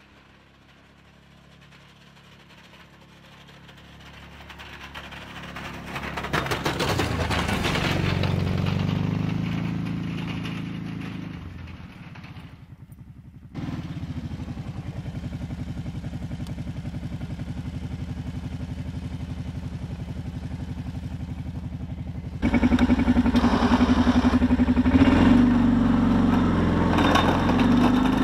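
Kawasaki Brute Force 650 ATV's V-twin engine running as the plowing quad comes closer, grows loud and fades as it passes. After a sudden cut, the engine runs steadily with an even beat. About two-thirds of the way in it jumps louder and close up, heard from on board the machine.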